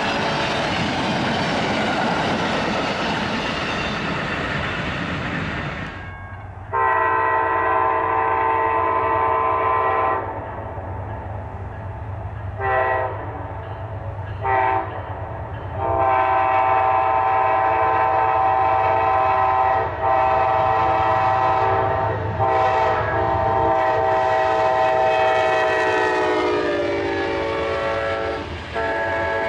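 Amtrak passenger train cars rushing past at speed. Then an approaching Amtrak diesel locomotive's chime horn sounds a long blast, two short blasts and a long blast held as it passes, the chord dropping in pitch as it goes by.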